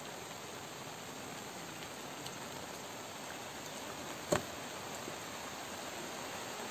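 Steady, even background hiss, with one sharp click about four seconds in as a hand picks boiled bambara groundnuts out of a metal pot.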